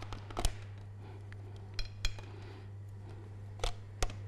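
About five sharp clicks and clinks of metal hand-mixer beaters being handled and knocked against a glass mixing bowl, spread irregularly, over a low steady hum. The mixer motor is not running.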